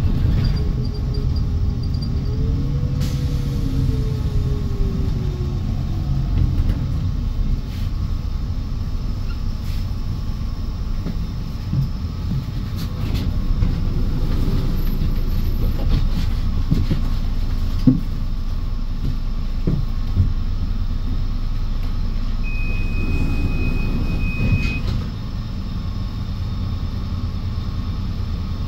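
Moving public-transport vehicle heard from inside: a steady low rumble with scattered clicks and knocks, and a motor whine that rises and then falls in pitch in the first few seconds. Near the end a steady high beep sounds for about two seconds, and the rumble then eases slightly.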